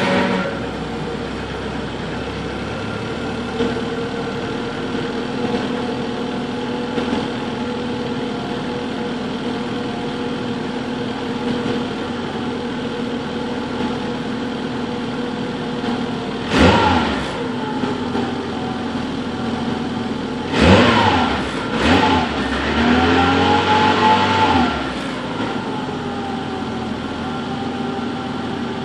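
Peugeot 106 Rallye's 1.6 litre 8-valve four-cylinder engine, through its stock exhaust, idling steadily just after starting. About two thirds of the way in it is blipped in short revs, one of them held for about two seconds, and then it drops back to idle.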